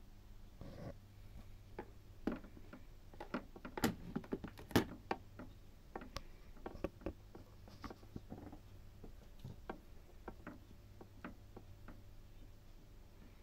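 Irregular sharp clicks and light taps, densest and loudest about two to five seconds in and sparser later, over a faint steady low hum.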